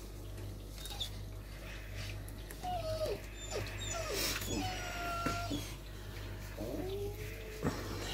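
Staffordshire terrier-mix puppy whining in several short cries that fall in pitch, while its injured leg is being bandaged: whimpering in pain. A short knock sounds near the end.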